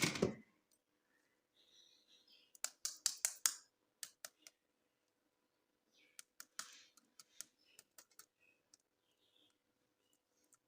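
Hands unboxing plastic toys and packaging: a thud at the start, then sharp clicks and short crinkling rustles, with a quick run of clicks about three seconds in.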